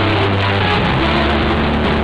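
Loud live electric guitar and bass guitar playing, the bass holding sustained low notes.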